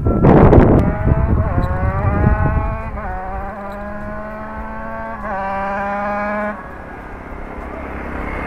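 Yamaha RX-King single-cylinder two-stroke motorcycle, fitted with a genuine YZ magneto, passes close at speed and then pulls away hard through the gears. Its engine pitch climbs within each gear and drops at shifts about three and five seconds in, then the revving cuts off a second or so later. Near the end another motorcycle comes close.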